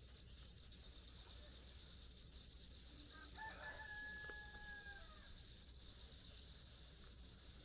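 A rooster crowing once, faint, a held call of about a second and a half starting a little past the middle, over a steady faint high-pitched hiss.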